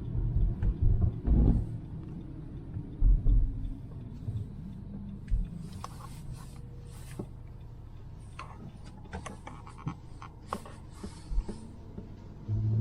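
Car driving on a plowed road, heard from inside the cabin: a steady low engine and road rumble with a few low thumps and scattered short clicks.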